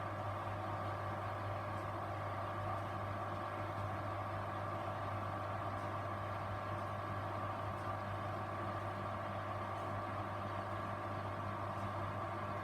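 Grundig washing machine running, a steady motor hum that holds even with no breaks or pauses.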